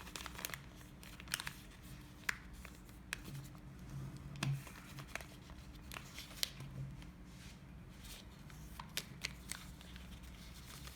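Paper rustling and creasing as the flaps of an origami bird base are folded and flattened, in scattered small crackles and taps.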